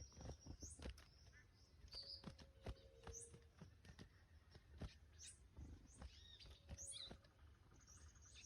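Faint, short, high rising chirps from a small songbird, repeated several times, with scattered light clicks and taps.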